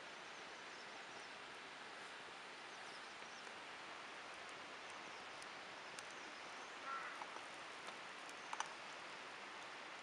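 Quiet steady outdoor hiss, with a few sharp clicks in the second half as a metal spatula taps and scrapes on a Himalayan salt plate.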